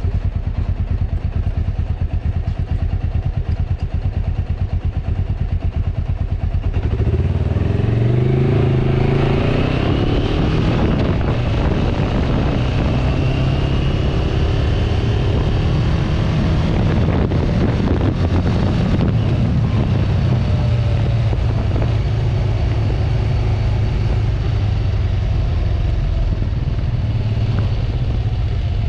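Kawasaki Vulcan 500 motorcycle's parallel-twin engine running as the bike rides along, heard from the handlebars. About seven seconds in it gets louder with the revs rising as the bike accelerates, then it settles into a steady cruise.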